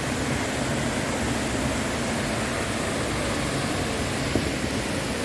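Waterfall: a steady, even rush of falling water, with a faint knock about four seconds in.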